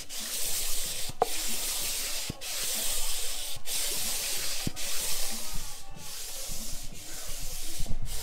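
An abrasive rubbed by hand back and forth over the deck surface of a Toyota 1JZ engine block, a light scuff to prep it for the cylinder head. The scraping comes in even strokes with a brief pause a little more than once a second.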